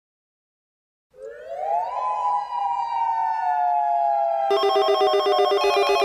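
A warning siren starts about a second in, rising quickly in pitch and then slowly falling as it winds down. About three and a half seconds in, a rapid electronic trill, like a telephone ring, joins it.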